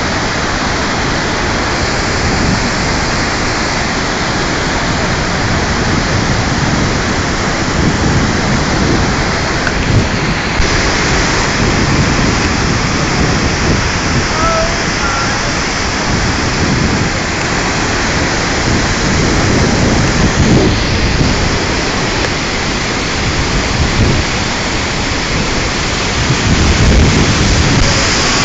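Loud, steady roar of the Devil's Throat cascade at Iguaçu Falls, a huge mass of water plunging into its gorge, with deeper rumbling swells a few times.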